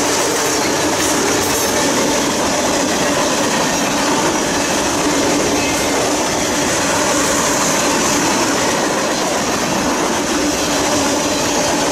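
Freight train of tank cars and a covered hopper passing: steady, unbroken noise of steel wheels rolling on the rails.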